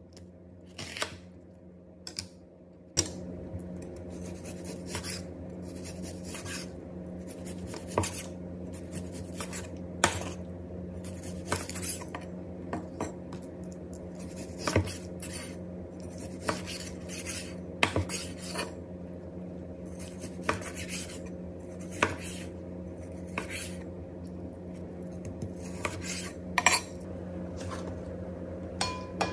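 Santoku kitchen knife cutting through onion and then raw pork neck on a plastic cutting board: the blade knocks sharply against the board about every one to two seconds.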